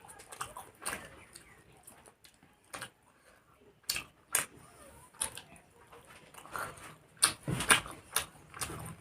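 Close-up eating sounds of fried rice and chicken being eaten: irregular short smacks and clicks of chewing and mouth noises, a little louder near the end.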